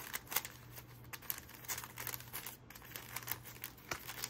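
Paper receipts crinkling and rustling as they are handled and put away, a run of short, irregular crackles.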